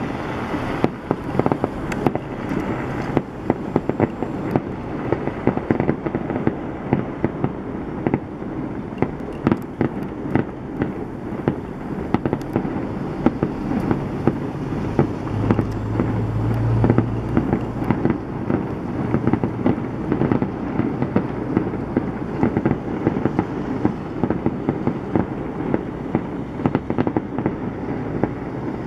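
Fireworks display: a dense, continuous barrage of shells bursting, sharp bangs and crackles overlapping with no pause. A deeper low rumble swells briefly about halfway through.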